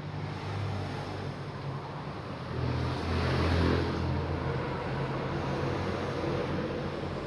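A motor vehicle's engine running and passing by. Its hum swells to a peak about three seconds in, then eases off.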